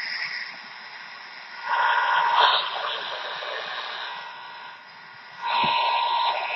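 Shortwave static from a County Comm GP-5DSP portable radio tuned to an empty 5.070 MHz channel, a hiss with a steady whine in it, swelling louder twice. The station has gone off the air; the hiss and whine are interference, which the owner puts down to the computer recording nearby.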